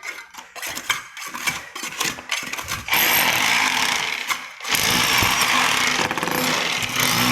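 A few seconds of irregular knocks, then a power tool starts up and runs loud and steady, cutting out briefly a little before five seconds in and starting again, as it breaks into the masonry around a leaking water pipe.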